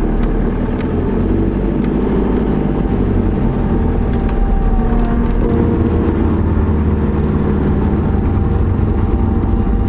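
Engine and road noise heard inside the cab of a Kia Bongo 3 camper van on the move: a steady low rumble with the engine's hum.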